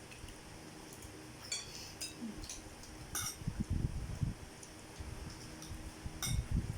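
Fork and spoon clinking now and then against a plate of spaghetti, a few sharp ticks spread through, with a few dull low thumps around the middle and near the end.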